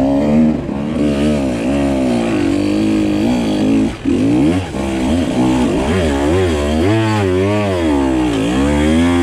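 Husqvarna TE 150 two-stroke dirt bike engine revving up and down repeatedly as it is ridden up a rutted woods trail, with a short drop in level about four seconds in. The rider says he could have used a lower gear there.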